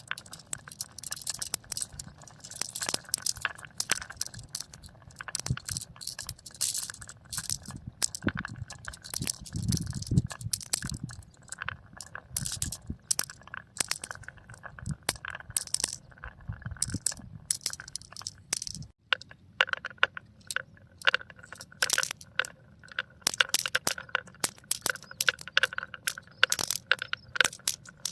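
Marbles rolling and clattering down a marble run, a dense stream of quick clicks and knocks over a low rolling rumble. About two-thirds of the way through the sound changes abruptly: the rumble drops away and the clicks ring with a faint tone.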